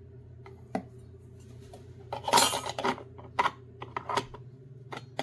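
Cups being handled and set down: a few sharp clacks and knocks, with a longer, louder clatter about two seconds in.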